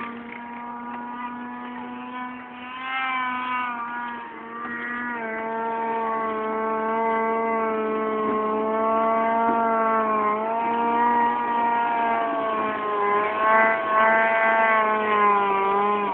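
Snowmobile engine held at high revs as the sled skims across open water: a steady high whine that dips in pitch briefly a few times and grows louder as the sled comes closer.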